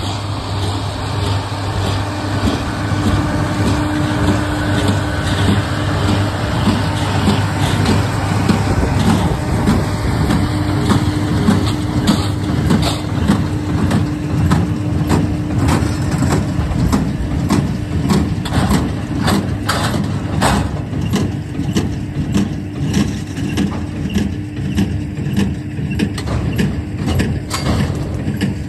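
A tractor engine runs steadily under load while pulling a loaded bale trailer, with frequent clattering knocks and rattles that grow denser in the second half.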